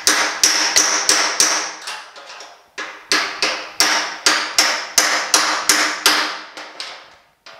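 A hammer tapping a tapered length of rebar used as a drift to push a crease dent out of a sandblasted steel truck running board. It makes a run of sharp, ringing metallic taps, about three a second, with a short break a little over two seconds in.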